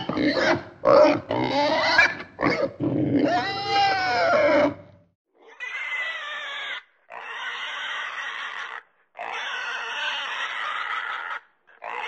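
Domestic pigs squealing and grunting. For the first five seconds the calls come quickly, short and sliding in pitch. Then come three longer, noisier calls, each lasting one to two and a half seconds.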